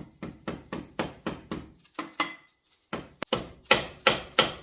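Rapid hammer taps, about four a second, on a stuck part of a Ford Model A four-cylinder engine to work it loose. A short pause comes about two seconds in, and the taps grow louder near the end.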